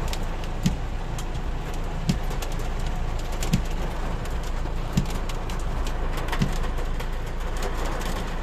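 Heavy rain mixed with hail pelting a car: a steady hiss with scattered sharp ticks of stones striking, and a soft low thump repeating about every second and a half.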